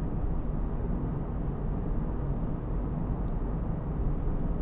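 Mazda2's cabin at a steady cruise: a constant rumble of tyre road noise, loud enough to dominate, with the low-revving 1.5 L SKYACTIV-D diesel engine quiet beneath it.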